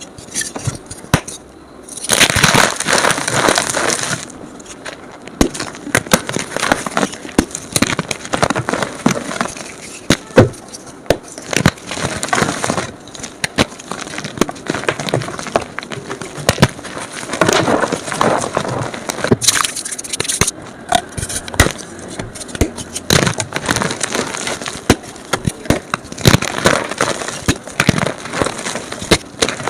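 Blocks of gym chalk crushed and crumbled by hand, a dense run of crunching crackles, played back sped up. The crunching is loudest about two to four seconds in and again around eighteen to twenty seconds in.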